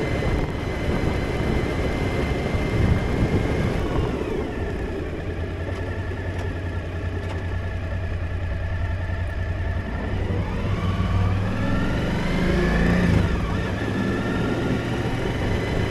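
Suzuki V-Strom motorcycle's V-twin engine with road and wind noise, heard from the rider's position. The engine note falls about four seconds in as the bike slows to walking pace, then rises again as it accelerates away, about ten seconds in.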